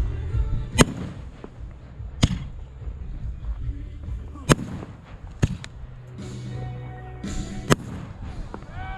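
Fireworks going off: about five sharp bangs a second or two apart, with crackle between them, over a low steady hum.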